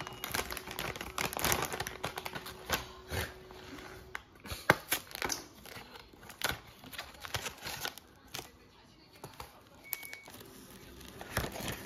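Plastic snack packaging crinkling and crackling as a potato-chip bag is opened and a foil-wrapped wafer is pulled from a torn cardboard box, with irregular rustles and clicks and one sharp snap about five seconds in.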